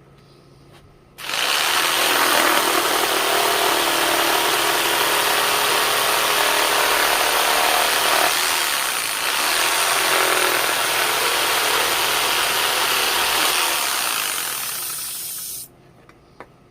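A handheld power tool running against wood for about fourteen seconds, starting about a second in, easing briefly around the middle, and stopping near the end.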